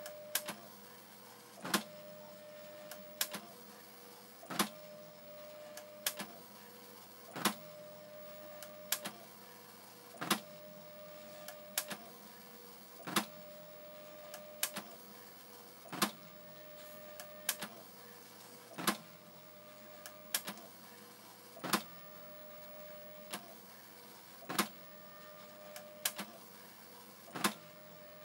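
Sanyo MPT-C10 printer printing a graphics image pass by pass: a steady whine while the head travels, broken by a sharp clack about every one and a half seconds, with lighter clicks between.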